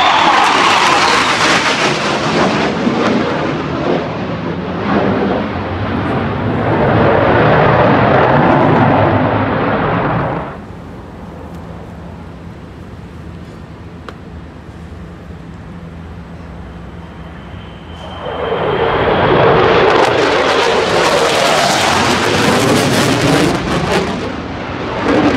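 RAAF F/A-18F Super Hornet, twin General Electric F414 turbofans, flying low overhead with a loud jet roar that fades out after about ten seconds. The roar builds again about two-thirds of the way through as the jet comes back close.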